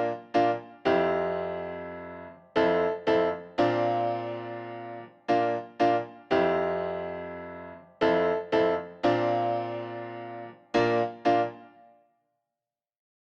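Background piano music: struck chords that ring and fade, with short quick chords between the longer ones. It stops near the end.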